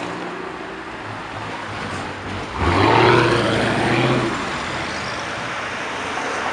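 Performance car's engine and exhaust running at low speed, then opening up sharply about two and a half seconds in as the car accelerates away. The sound is loud for about two seconds, then settles back to a steadier drone.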